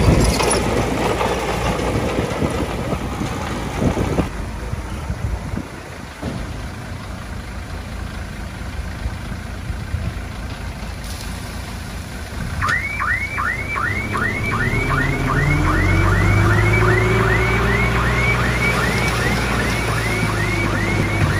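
Heavy diesel earthmoving machinery running steadily, with a few sharp knocks about four and six seconds in. Past the midpoint a rapid, alarm-like rising chirp starts and repeats about three times a second, while a heavier engine hum builds underneath and rises and falls in pitch.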